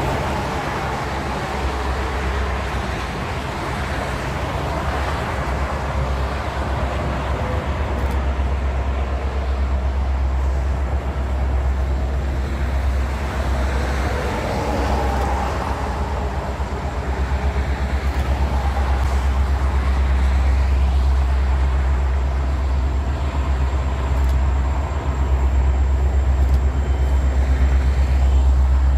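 Train rolling past with a steady low rumble and rail noise.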